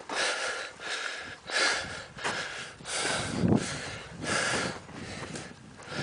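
A person breathing hard while hiking through snow, a loud rushing breath roughly once a second.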